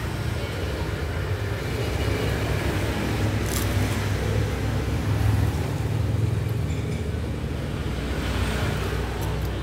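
Steady low rumble of passing road traffic. About three and a half seconds in comes a short crunch as a piece of crisp food is bitten.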